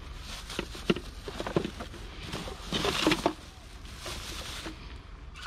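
Scattered knocks and clatter with short bursts of rustling, as items are handled and moved about; the loudest rustling comes a little before three seconds in.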